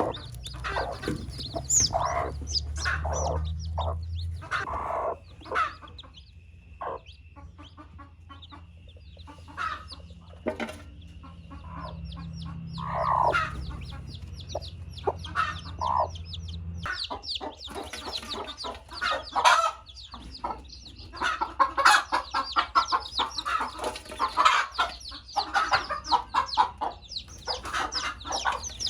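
Mother hen clucking, with her newly hatched chicks peeping: many short high calls that grow denser in the last ten seconds. A low hum underneath stops about halfway through.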